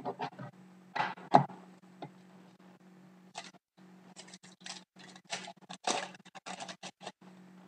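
Trading cards being handled and slid against one another as a pack is flipped through: a string of short clicks and scratchy card-stock rustles, coming faster from about four seconds in.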